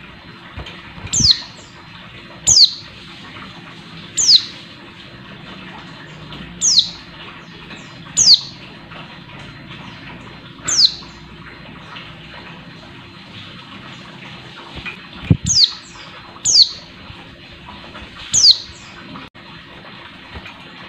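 Caged female white-eye (pleci) giving about ten sharp, high calls, each a quick downward slur, spaced a second or two apart with a pause after the middle. Soft wing flutters and a couple of low thumps come as it hops about the perch.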